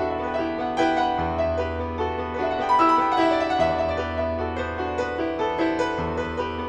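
Background piano music: a flowing line of notes over a low held bass that moves to a new chord about every two and a half seconds.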